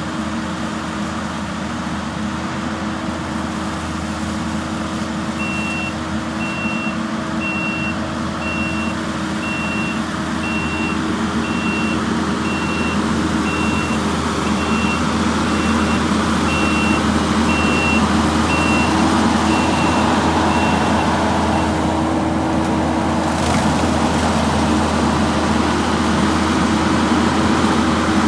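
Skid steer running steadily while mowing, growing somewhat louder in the second half. Its backup alarm beeps about once a second from about five seconds in until about twenty seconds in, as the machine reverses.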